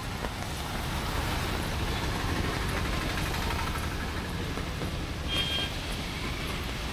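Rain and road traffic on a wet city street, a vehicle going by with a steady hiss that swells and fades. About five seconds in there is a short vehicle horn beep.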